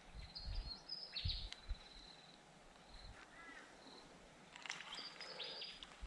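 Faint open-air ambience with a few short high bird chirps and some low thumps on the microphone near the start.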